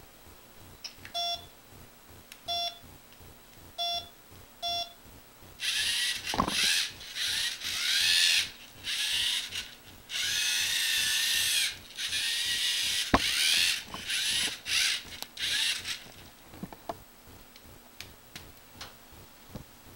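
Four short electronic beeps from a LEGO Mindstorms NXT brick, then the NXT servo motors whirring through their plastic gears in stretches lasting one to a few seconds as the car drives, the pitch rising and falling with motor speed.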